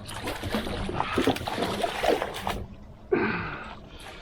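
Water splashing and sloshing against a kayak in a strong current, with a short wordless voice sound about three seconds in.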